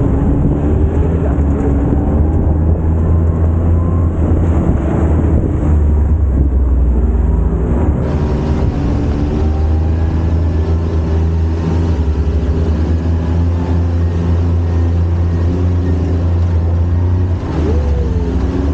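UTV engine running steadily under way, a loud low drone with its pitch shifting a little with the throttle.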